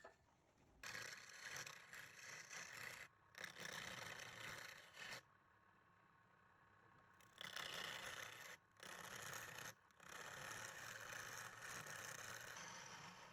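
Tool scraping against wood turning on a lathe, in five bursts of about one to three seconds each with short pauses between.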